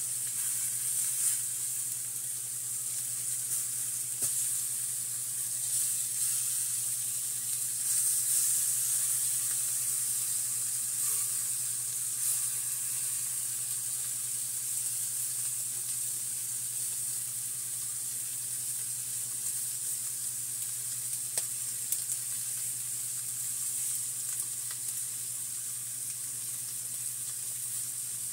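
Seasoned oxtail pieces sizzling steadily as they sear on a hot griddle, over a steady low hum. A few light clicks are heard as the pieces are turned.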